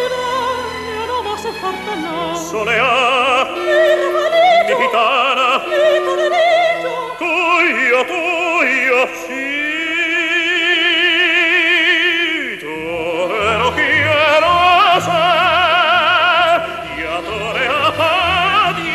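Soprano and tenor singing an operatic zarzuela duet with orchestra, both voices with wide vibrato. A long held note starts about nine seconds in and ends about twelve and a half seconds in.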